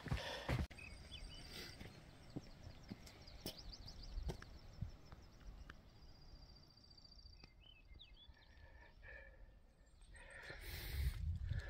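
Faint outdoor ambience in which a small bird sings a high, fast trill a few times in the first seconds and again at the very end, with a few short chirps around the middle. Near the end a low rumble rises.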